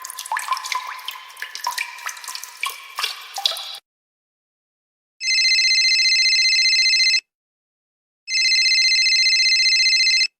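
Water drops plinking in quick, irregular succession for a few seconds. After a short silence, a telephone rings twice, each ring about two seconds long.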